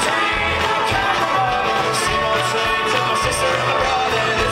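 Live acoustic folk-rock band playing: strummed acoustic guitars and banjo over a steady low beat, with some singing.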